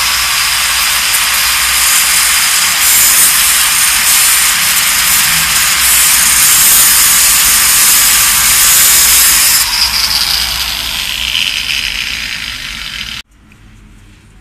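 Bosch GWS 7-125 angle grinder with a thin disc cutting through a steel threaded rod held in a vise: a loud, steady high whine and grinding. It eases off after about ten seconds and stops abruptly near the end.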